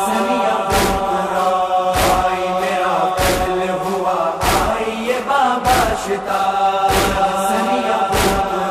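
Urdu noha recitation between sung lines: a chorus holds a sustained hum over sharp, evenly spaced beats about every second and a quarter, the matam (chest-beating) that keeps time in a noha.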